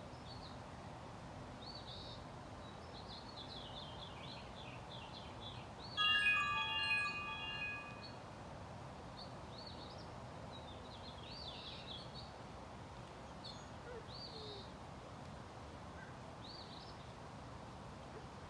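A wind chime rings about six seconds in, several clear notes sounding together for about two seconds before fading. Songbirds chirp in short repeated phrases throughout, over a steady outdoor background hiss.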